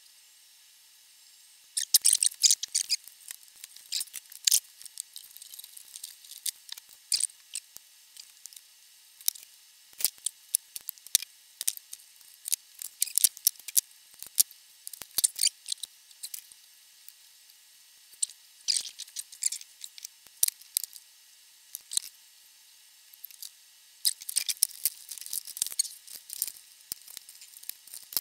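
Irregular bursts of sharp clicks and snips from small hand tools worked on wire, a wire stripper clamping and cutting, mixed with light ticks of metal parts being handled.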